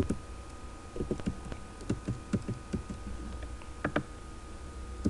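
Keys tapped on a computer keyboard at an irregular pace, with a sharper click about four seconds in.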